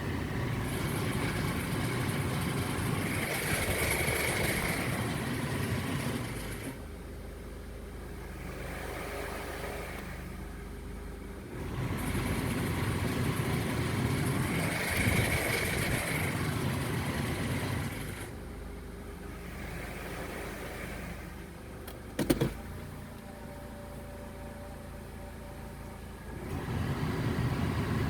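2006 Acura TSX car noise, alternating between louder stretches and quieter steady ones, with one sharp click about 22 seconds in. The owner hears a clicking from the car whose cause is unknown.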